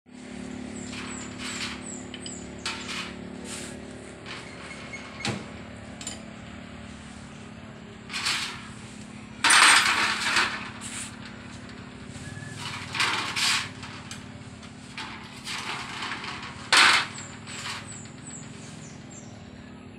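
Metal hand tools clinking and clattering in a steel tray and against the underside of a Bajaj RE three-wheeler during an oil change, in short irregular bursts, the loudest about halfway through. Birds chirp faintly near the start and end over a low steady hum.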